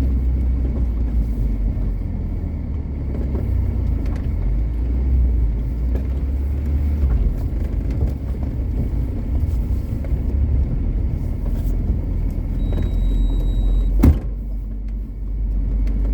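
Car engine running in low gear as the vehicle crawls over a rough, rocky track, a steady low rumble with one sharp knock near the end.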